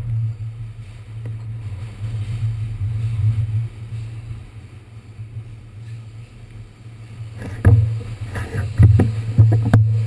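Subway car running on the rails: a steady low hum, with several sharp knocks and rattles in the last couple of seconds.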